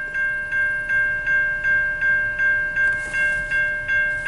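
Railroad crossing bell ringing steadily at about three strikes a second while the crossing gates are down. A brief hiss rises about three seconds in and again near the end.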